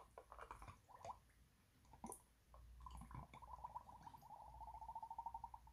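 Faint small clicks and taps of fingers handling a glass of water. Then, about three seconds in, a fingertip squeaks against the wet glass, a stuttering high tone whose pulses speed up.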